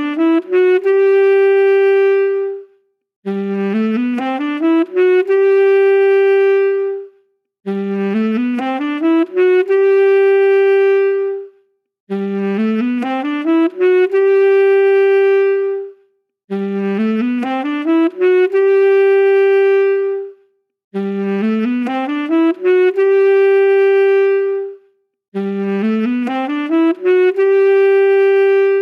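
Saxophone playing the same short phrase again and again, about every four and a half seconds: a quick run of notes climbing up to one long held note, then a brief pause before it starts over.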